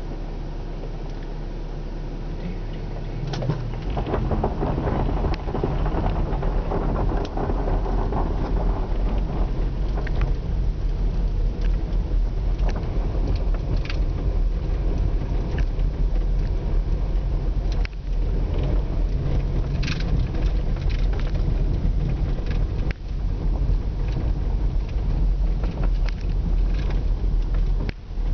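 Car driving on a snow- and ice-covered street, heard from inside the cabin: a steady engine and tyre rumble that gets louder about three and a half seconds in, with scattered sharp clicks.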